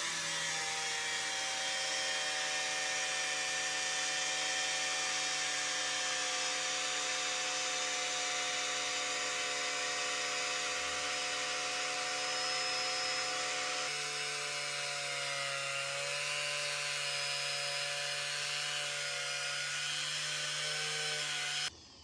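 Electric angle grinder with a buffing wheel running steadily with a high whine. Its pitch dips and wavers briefly about two-thirds of the way through, and the sound cuts off suddenly near the end.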